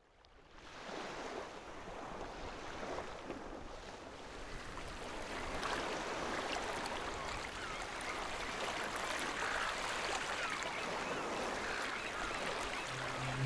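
Moving water: a steady wash of water, fading in from silence over about the first second and growing a little louder.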